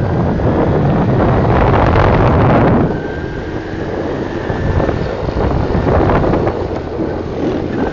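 Wind rushing over the microphone mixed with a Honda motorcycle's engine running at road speed. It is loudest for the first three seconds, then eases a little.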